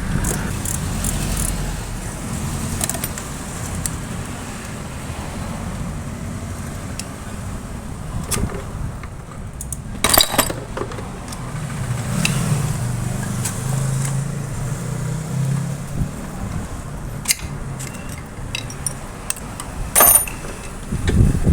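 Metal hand tools clicking and clinking against engine parts during disassembly of a motorcycle engine, with two louder metallic clanks about halfway and near the end, over a steady low rumble.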